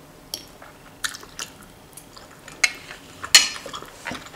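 A person chewing soft food close to the microphone: wet smacking with several short sharp clicks, the loudest a little over three seconds in.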